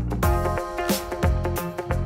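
Background music with a steady drum beat under sustained pitched notes.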